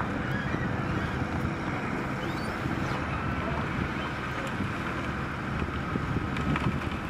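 Diesel engine of a Caterpillar tracked excavator running steadily under load as it digs in shallow water, with wind buffeting the microphone.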